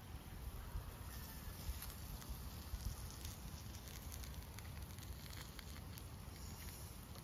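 Faint scattered crackles and light ticks over a steady low rumble of outdoor ambience.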